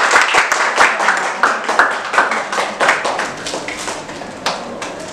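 Hand clapping, a dense irregular patter of claps, mixed with laughter, fading away toward the end.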